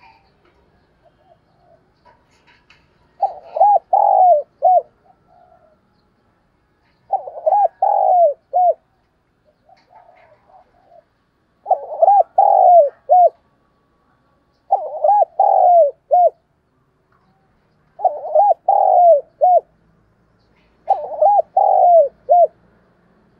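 Spotted dove cooing: six phrases a few seconds apart, each a quick run of about four coos, with softer coos between them.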